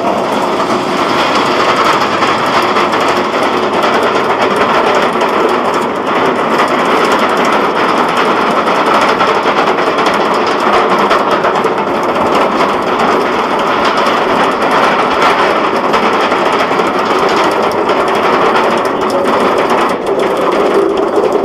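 A B&M wing coaster train being hauled up the chain lift hill: a steady, rapid mechanical clatter of the lift chain and the ratcheting anti-rollback dogs, unbroken throughout.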